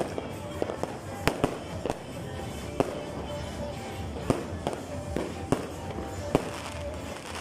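Fireworks going off: a string of sharp bangs and cracks, about one to two a second, with music playing in the background.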